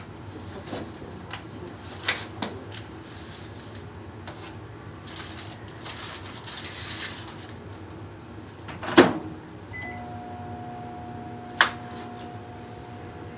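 Clicks and knocks of handling, then a microwave oven door shut with a sharp knock, a short keypad beep, and the microwave starting up and running with a steady hum, with another click partway through.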